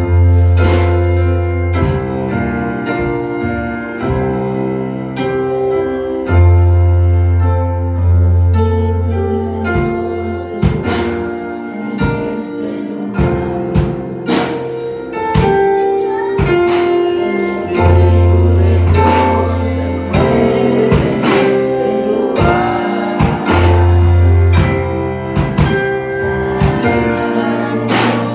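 Live church band playing a worship song through PA speakers: keyboards with deep held bass notes, drum kit hits and a voice singing over it.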